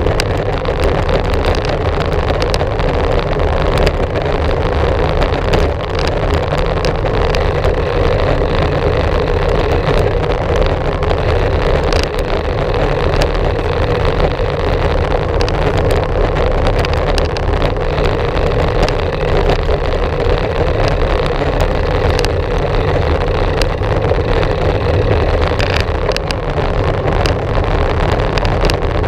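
Wind buffeting a GoPro Hero 4's microphone and tyre and trail noise from a bicycle in motion: a loud, steady rumble with scattered small knocks and rattles from bumps.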